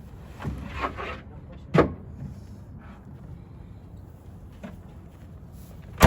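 Knocks and thuds of a deer carcass being loaded onto a truck. The loudest knock comes about two seconds in, and a sharp bang lands right at the end.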